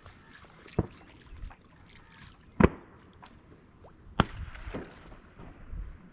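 Three shotgun shots, a second and a half to two seconds apart, the second the loudest.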